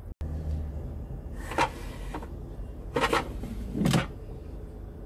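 Philips air fryer's basket drawer being pushed into the machine and shut: three plastic clunks, the last and heaviest about four seconds in.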